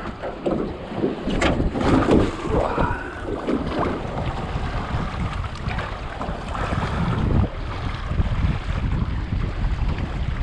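Wind buffeting the microphone over small waves lapping and splashing against the hull of an aluminium dinghy in shallow water, the splashing busiest in the first few seconds.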